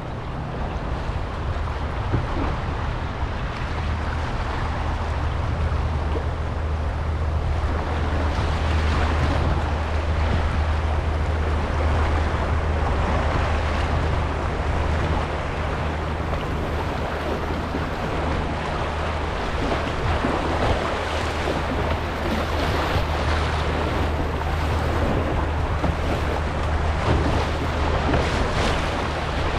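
Rushing whitewater of a Class 2 wave train around a canoe running the rapids, with a steady low rumble of wind on the microphone underneath.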